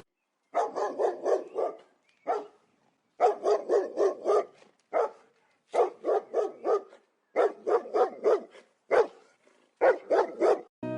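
A dog barking in quick runs of four to six barks, broken by short pauses and a few single barks.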